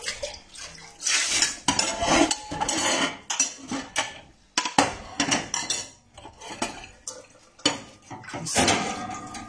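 Plates and metal cutlery clattering and clinking in a steel sink as dishes are washed by hand, in irregular knocks and clinks throughout.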